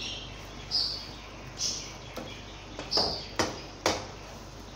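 A spatula stirring and scraping okra masala in a nonstick kadai, with short high scrapes about once a second, then two sharp taps against the pan.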